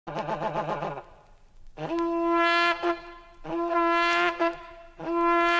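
A horn-like wind instrument sounding in blasts. First comes a wavering lower note for about a second. Then come three long held notes, each about a second long, each scooping up into its pitch at the start.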